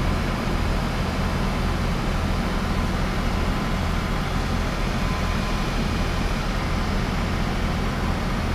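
Tracked hydraulic excavator's diesel engine running steadily at a constant speed, a low even hum with no change.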